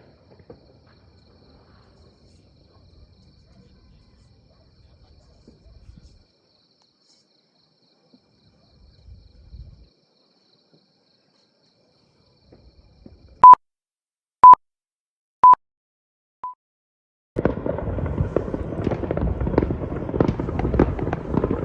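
Near quiet for a long stretch, then four short high beeps a second apart, like a countdown. Right after them comes a dense crackling of many New Year fireworks and firecrackers going off at once.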